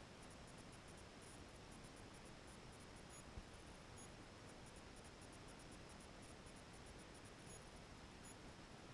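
Near silence: faint steady hiss of room tone, with one soft knock about three and a half seconds in.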